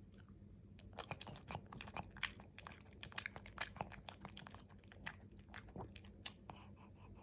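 Pug chewing a mouthful of soft crumbly food and licking its lips, a quick irregular run of small wet clicks and smacks.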